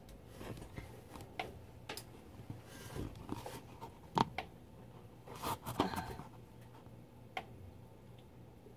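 Faint handling noise from a phone moved about among pipes: a few scattered light clicks and brief scrapes, over a low steady hum.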